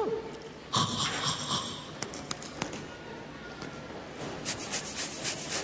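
Comic vocal sound effects from a clown: a short falling whistle-like glide, then a noisy burst about a second long, followed by a few sharp clicks.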